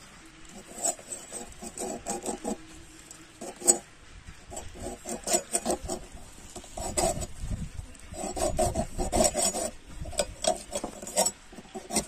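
Knife blade scraping the scales off a whole pomfret fish: quick, irregular rasping strokes in bursts, busiest in the second half.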